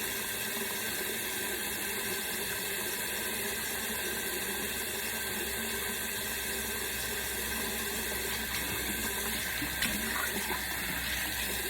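Tap water running steadily into a sink as hair is washed, with a few faint clicks about ten seconds in.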